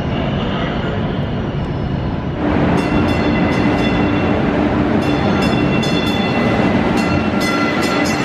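MBTA Green Line Type 7 light-rail train pulling into an underground station platform. Its rumble grows louder about two seconds in, joined by a steady whine and a run of sharp clicks from the wheels on the track.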